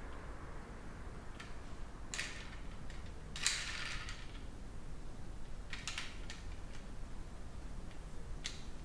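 Scattered clicks and short scrapes of a small object being turned over in the hands. The loudest, longest scrape comes about three and a half seconds in and a quick cluster of clicks near six seconds, over a steady low room hum.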